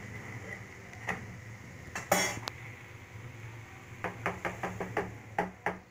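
Metal kitchen utensils clinking and knocking against cooking pans: a sharp clatter with a short ring about two seconds in, then a quick run of light clicks near the end, over a steady low hum.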